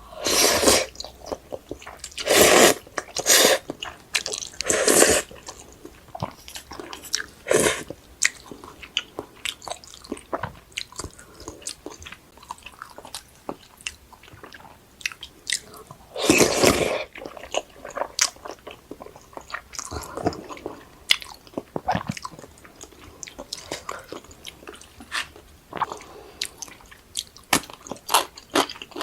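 A person eating close to the microphone, chewing with wet mouth clicks throughout. Several loud bites come in the first eight seconds and one more comes about two-thirds of the way through.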